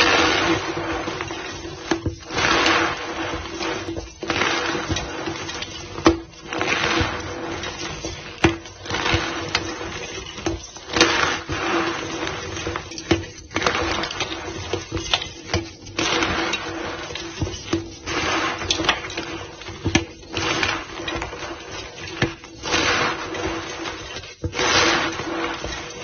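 Powdered white gym chalk being pressed and squeezed back into a block, giving squeaky, crunching strokes that repeat about every two seconds, with occasional sharp clicks.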